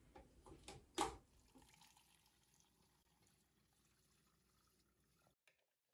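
A thin stream of water runs faintly from a tap into the plastic reservoir of a water flosser, filling it. A sharp knock comes about a second in, and the sound cuts off abruptly near the end.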